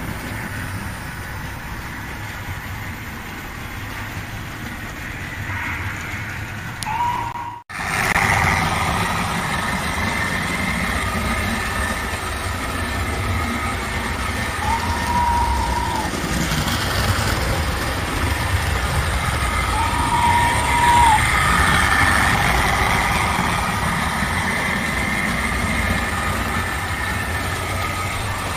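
Hornby OO gauge model trains running on the layout: a steady low rumble and motor hum with some wheel noise. A short high tone sounds three times, and the sound drops out for an instant about seven and a half seconds in.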